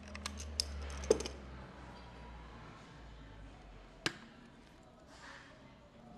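Small plastic clicks and taps from a Bosch LR1 laser receiver being handled: a quick run of light clicks in the first second, a sharper click just after a second in, and one more click about four seconds in.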